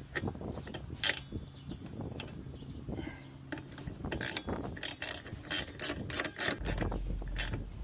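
Socket ratchet clicking in short quick runs as the wiper arm's retaining nut is tightened, the clicks coming thicker in the second half.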